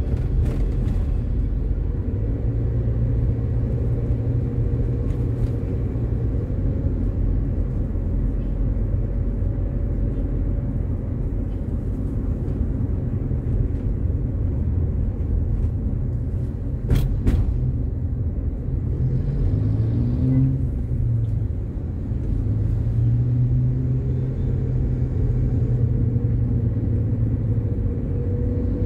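Car cabin noise while driving: a steady low engine and road rumble, with the engine note rising and falling as the car speeds up and slows. There is one sharp click about seventeen seconds in.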